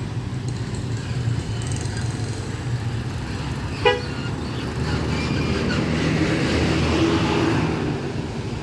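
Road traffic running past, louder in the second half as a large vehicle goes by, with one short vehicle-horn toot about four seconds in.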